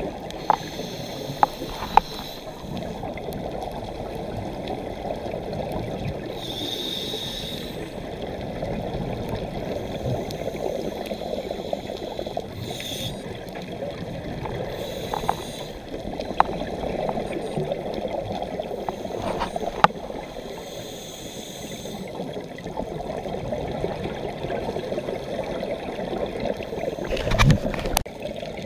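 Underwater scuba-dive sound through a camera housing: a steady muffled rush of water and bubbles, with a short hiss of breath through a regulator every several seconds. A few sharp clicks are heard early and again about two-thirds through, and a louder bubbling burst comes near the end.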